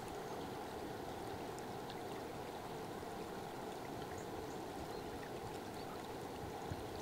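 Fast-flowing river water rushing steadily, with a few faint scattered ticks.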